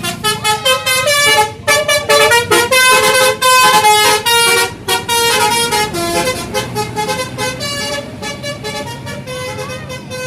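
Bus 'telolet basuri' horn, a multi-tone musical air horn, playing a fast run of changing notes with short breaks between them. Loudest in the first half, getting gradually quieter toward the end.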